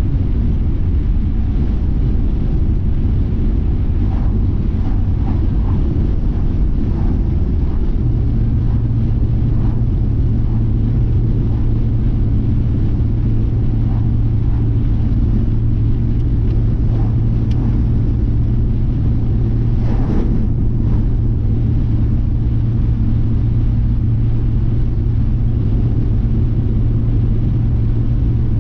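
Car driving at highway speed on a sealed road, heard from inside the cabin: a steady low rumble of tyres and engine. A steady low hum joins it about eight seconds in, and there is a brief swish about two-thirds of the way through.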